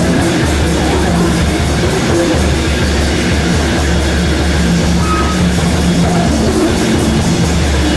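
Two electric guitars and drums playing free-improvised noise music: a loud, dense, unbroken wall of sound over a steady low drone, with a short high held tone about five seconds in.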